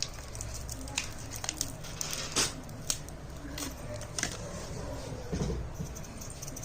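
Scattered light clicks and taps of small metal parts and refrigerator tubing being handled, over a steady low hum.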